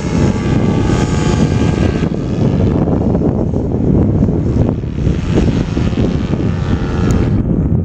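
Paramotor engine and propeller droning overhead, its buzz clearest for the first couple of seconds and then fainter.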